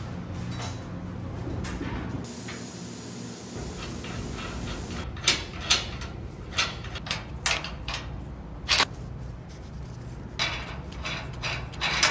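Scattered sharp metal knocks and clicks of parts and hardware being handled and fitted on a truck's steel frame, mostly in the second half. There is a low steady hum throughout and a high hiss for a few seconds near the start.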